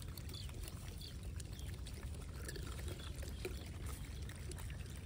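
Scattered small cracks and rustles as gray langurs handle and shell peanuts, over a steady low rumble.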